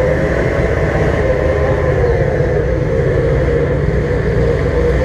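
Car running, a steady loud low engine rumble with road noise.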